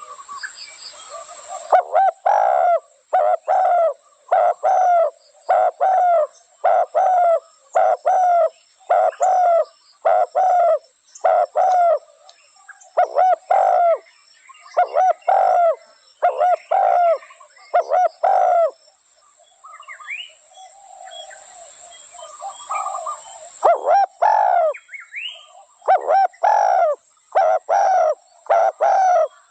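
Spotted dove cooing: short, hollow coo notes repeated in quick runs of about two a second. About two-thirds of the way through, the coos pause for a few seconds, and fainter high chirps from another bird show in the gap.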